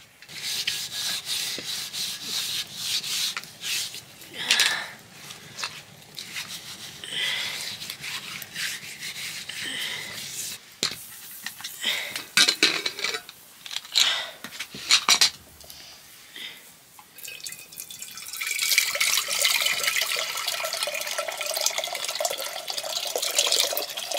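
Water splashing and dripping with irregular rubbing, scraping and knocking, as of hand washing in a vessel, becoming a louder, steadier run of water from about 18 seconds in.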